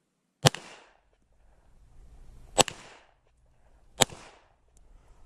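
Three pistol shots from a Glock, the first about half a second in, the second about two seconds later and the third about a second and a half after that, each trailing off in a short echo.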